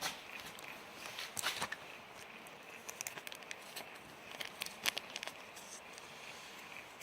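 Scattered light clicks and rustles of hands handling small engine parts and a small plastic parts bag.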